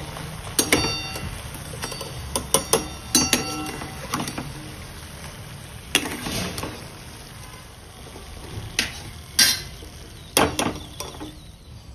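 A metal skimmer and a wire spider strainer clink and scrape against each other and the rim of a steel kadhai as fried cashews are lifted out of hot oil. The taps are irregular, some ring briefly, and the loudest come near the end.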